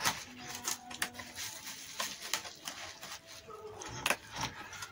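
Cardboard packaging of a non-stick tawa being tipped and shaken to work the pan out: rustling and scraping with scattered knocks and taps, the loudest about two and four seconds in.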